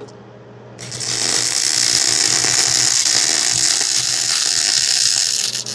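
MIG welding arc from a Miller Auto Set 180 laying a bead on steel pipe: a steady crackling sizzle that starts about a second in and stops just before the end.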